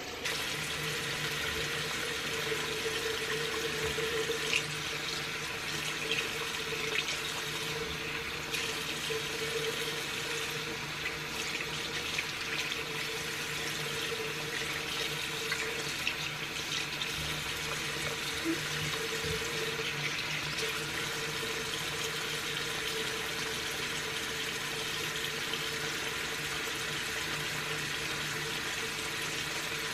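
Bathroom sink tap running steadily, its water splashing over makeup brushes as they are rinsed and rubbed on a silicone brush-cleaning mat in the basin.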